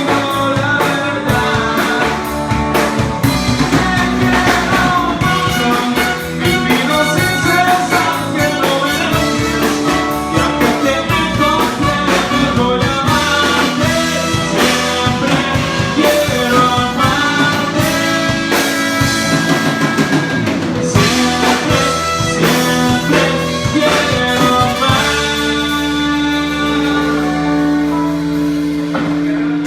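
A band playing loud amplified music with drums, during a sound check. About 25 seconds in, the music settles onto a long held chord with fewer drum hits.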